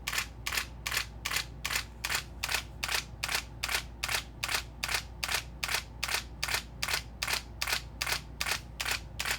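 Nikon D300 DSLR shutter and mirror firing a continuous-high burst: an even run of sharp mechanical clicks, about three a second, as the camera shoots until its buffer fills.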